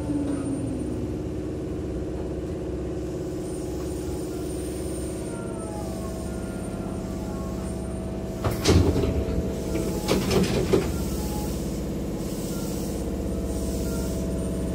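Hankyu Imazu Line train car's sliding doors opening at a station stop. Under a steady hum from the stopped train, a sudden burst about eight and a half seconds in as the doors start to slide, then a cluster of knocks a couple of seconds later as the door leaves reach their stops.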